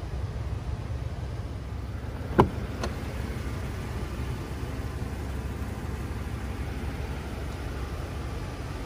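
Steady low rumble with one sharp knock about two and a half seconds in and a lighter click just after it.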